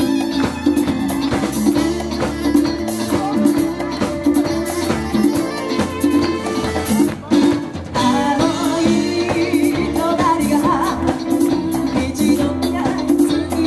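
Live pop band with congas, electric bass, drum kit, keyboards and saxophone playing a steady up-tempo groove. A woman's lead vocal comes in about eight seconds in, after a short break in the band.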